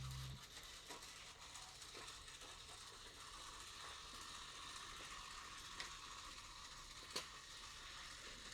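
Background music ends with a low note cut off just after the start, leaving a faint steady hiss with a couple of soft clicks near the end.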